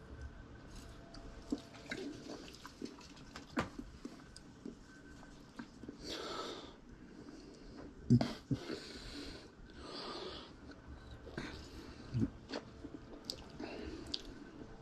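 Quiet mouth and breath sounds of someone tasting a soda: a few audible breaths out through the nose and some lip smacks and mouth clicks.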